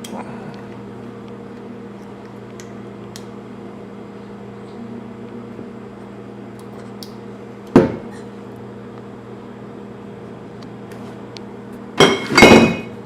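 Steady low electrical hum of a household appliance, made of several fixed tones. One sharp knock comes about 8 seconds in, and a louder, short double clatter comes near the end.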